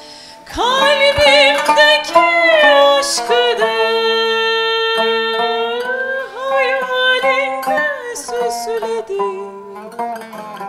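A woman singing a slow Turkish art song in a wavering voice with long held notes. A Turkish tanbur, plucked with a plectrum, accompanies her.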